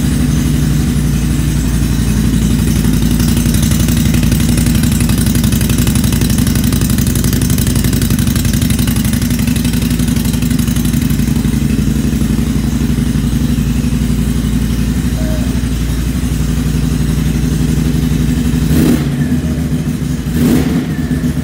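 Can-Am ATV engine breathing through an aftermarket GSE Performance exhaust, running at a steady speed with an Attitude Industries fuel controller installed. Two short blips come near the end.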